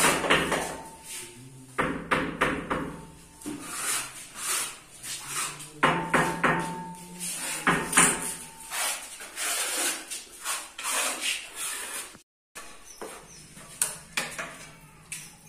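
Irregular taps, knocks and scrapes of wall tiling: ceramic wall tiles pressed and tapped into cement mortar, and a trowel spreading mortar on the back of a tile.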